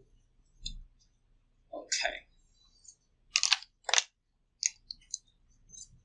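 A few short, sharp clicks and rustles against a quiet background, the two loudest about three and a half and four seconds in, with fainter ticks after them.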